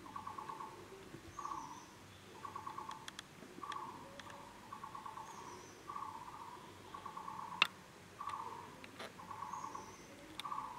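A bird calling over and over in a steady rhythm: a short note followed by a quick run of about seven pulsed notes, repeating every two seconds or so. A single sharp snap stands out about three quarters of the way in, with a few fainter clicks.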